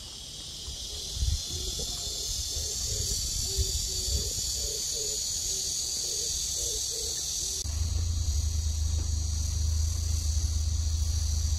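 Dense, steady, high-pitched insect chorus from the trees, its sound shifting about eight seconds in, with wind buffeting the microphone, heaviest over the last few seconds.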